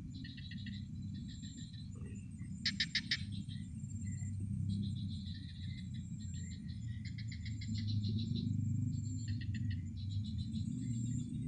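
Crickets and other night insects chirping in repeated pulsed trains, over a faint steady high insect whine. A louder, faster pulsed call comes about three seconds in.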